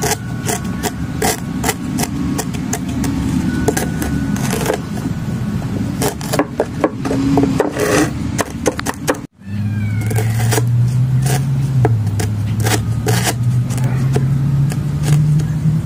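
Apple snail egg clutch being crushed and scraped under a rod, a fast run of crackling pops and scrapes. A low steady hum runs underneath and is louder after a short break about nine seconds in.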